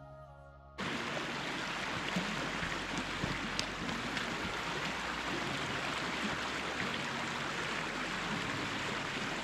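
Mountain stream, a steady rush of running water that cuts in suddenly about a second in.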